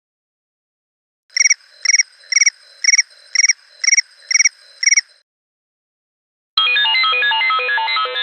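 iPhone ringtones played in turn. First comes a run of eight short, high chirping beeps about half a second apart. After a short silence a second ringtone starts near the end, a busy synthesized melody.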